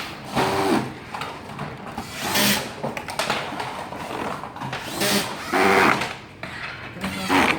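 Small electric screwdriver running in several short bursts, each under a second, as screws are driven into LED module covers.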